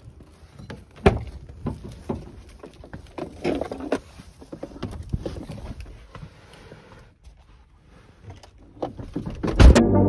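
A van's cab door being unlatched and opened with a sharp clack about a second in, followed by scattered knocks and rustling as someone climbs into the seat, and a loud thump near the end.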